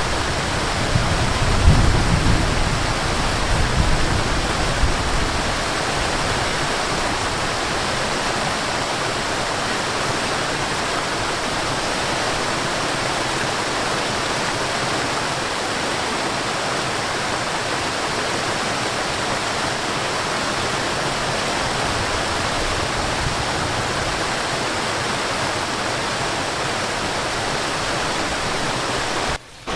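Waterfall rushing steadily: a continuous, even wash of falling water. It rumbles low and uneven in the first few seconds, and the sound drops out for a moment just before the end.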